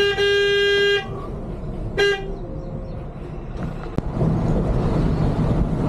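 Coach horn sounding: one long honk of about a second, then a short toot about two seconds in. Under it, the bus's engine and road noise are heard from inside the driver's cab.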